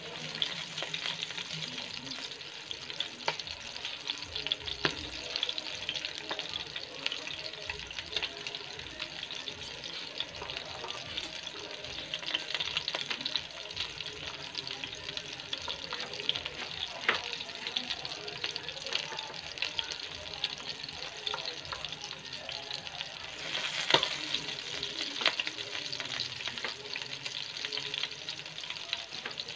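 Hot oil sizzling steadily around a whole masala-coated stuffed chicken shallow-frying in a pan, with scattered crackles and pops and one louder pop about three-quarters of the way through.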